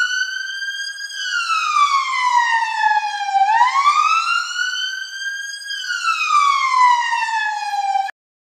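Emergency-vehicle siren in a slow wail, its pitch falling, rising and falling again over several seconds, then cutting off suddenly near the end.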